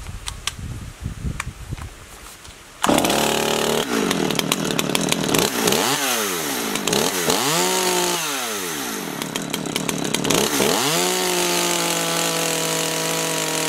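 Stihl MS 200T two-stroke chainsaw engine pull-started, catching about three seconds in, then revved up and down twice and held at high revs before dropping back near the end. The high-speed carburetor screw has just been leaned a half turn, and the owner hears it still running a little rich at both low and high end.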